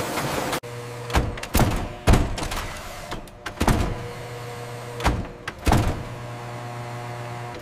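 A stamping press working: a steady low machine hum broken by several heavy mechanical thunks, some in quick pairs. A busier machine noise cuts off suddenly just after the start.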